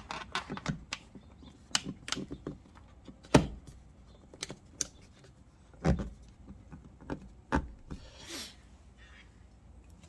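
Sharp plastic clicks and snaps as a Lindo dual-camera video doorbell is pressed onto its plastic wall bracket. The clicks come irregularly, the loudest about three and a half and six seconds in, with a brief rustle near the end.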